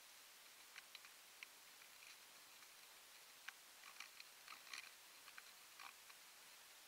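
Near silence with faint, scattered small clicks and ticks, a few more of them clustered about halfway through.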